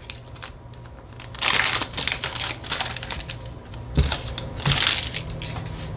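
Foil Pokémon booster pack wrapper crinkling as it is handled and the cards are slid out, in two bursts of rustling, with a knock about four seconds in.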